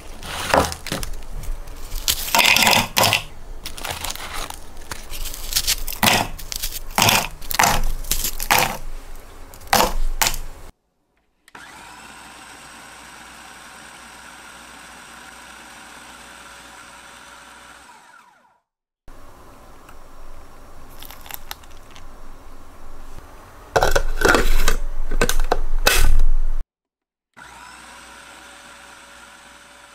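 Kenwood food processor grinding digestive biscuits into crumbs: loud, irregular crunching and rattling of biscuit pieces against the bowl, then a steady motor hum that winds down. The crunching comes back, loudest for a few seconds, and a steady hum follows near the end.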